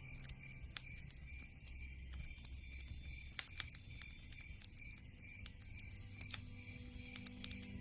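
Wood fire crackling in a fireplace: irregular sharp pops and snaps over a low steady rumble of the flames.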